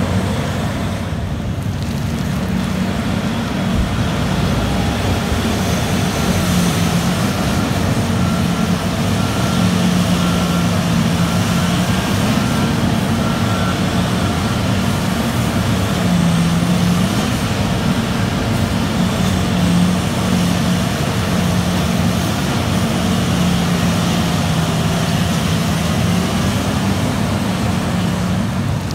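Terex RH170 front shovel excavator running steadily under load through its dig-and-dump cycle: a deep, continuous engine hum that rises and falls slightly in pitch, with a faint high whine in the middle.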